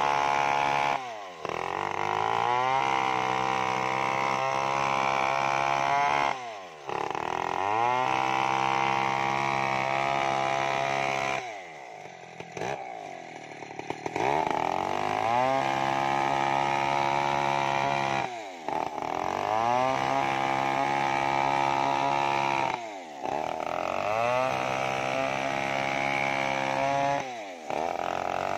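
Stihl 070 chainsaw's big two-stroke engine at full throttle, ripping lengthwise along a kenanga log on a freshly filed Oregon chain. Every four or five seconds the revs drop off briefly and climb back up, with a longer lull near the middle.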